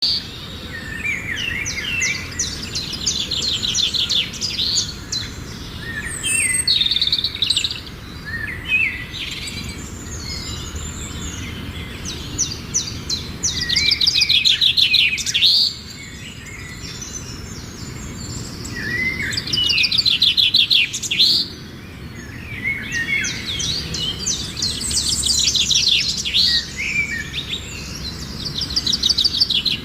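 Songbirds singing: bursts of fast, high trills mixed with short chirps, repeating every few seconds over a steady low background hum.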